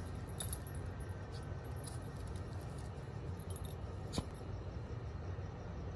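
Outdoor night ambience: a steady low rumble with faint, scattered high ticks, and one sharp click about four seconds in.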